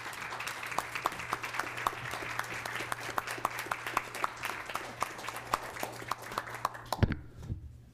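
A small audience applauding, with individual claps distinct, until the applause dies away about seven seconds in, just after a single loud thump.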